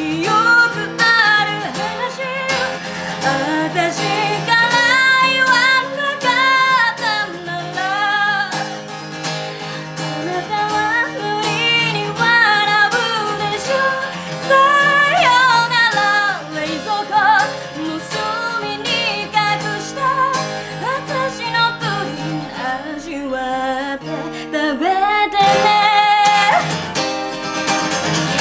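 A woman singing a Japanese ballad, accompanying herself by strumming an acoustic guitar.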